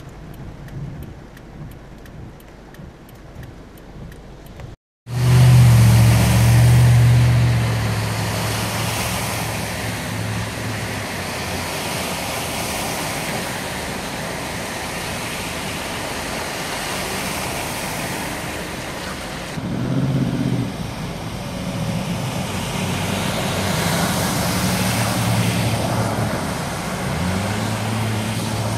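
Cars driving through deep floodwater on a street: a steady rush and splash of water pushed up by the tyres, with engine hum underneath. The sound drops out briefly about five seconds in, then comes back louder and closer, with the low engine hum swelling as vehicles pass.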